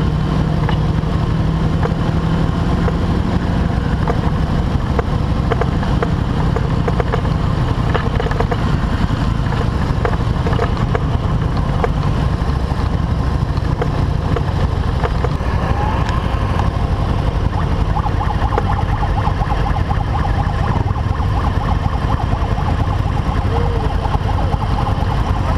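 Motorcycle engine running steadily under way on a dirt road, with a constant low rumble from the onboard camera's position on the bike. A higher steady whine joins about two-thirds of the way through.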